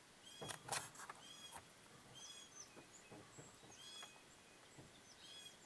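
A bird calling faintly, a short high chirp repeated every second or so. A few sharp clicks and knocks sound about half a second to a second in.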